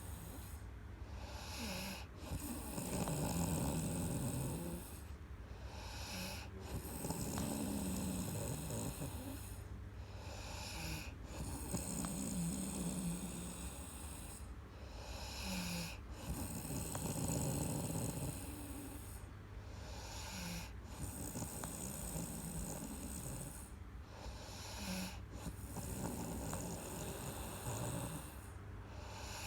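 A sleeping person snoring in a slow, even rhythm, with a loud snore about every four and a half seconds, six in all.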